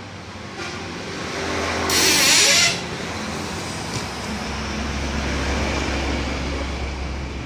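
Street traffic noise, with a brief loud hiss about two seconds in and a steady low hum building toward the end.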